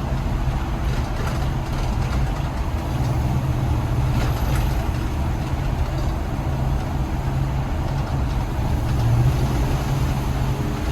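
Motorhome engine running with a steady low drone as the RV drives away.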